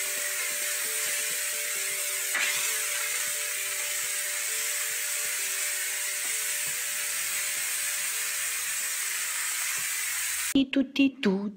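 Polti Vaporetto steam cleaner jetting steam from its nozzle: a steady hiss, with a short, sharper spurt about two seconds in. The hiss cuts off abruptly near the end, where a voice begins.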